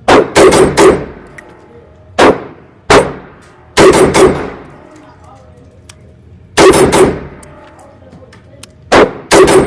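AR-15 rifle gunshots, about a dozen, fired as singles and quick strings of two to four shots, each followed by a short ringing echo.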